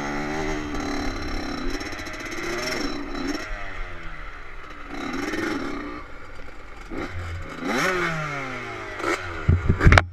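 Two-stroke dirt bike engines revving up and down while riding across grass, the pitch rising and falling again and again. A few loud thumps come near the end.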